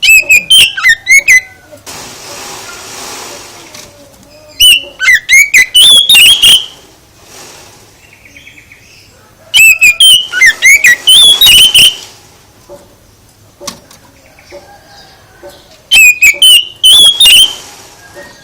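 Songbird singing loud, fast phrases of sliding whistled notes in four bursts a few seconds apart, with quieter pauses between.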